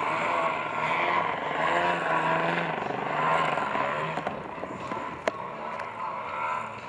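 Engine and propeller of a radio-controlled aerobatic model airplane in flight, the pitch rising and falling as it manoeuvres and passes, growing fainter after about four seconds. A single sharp click a little after five seconds in.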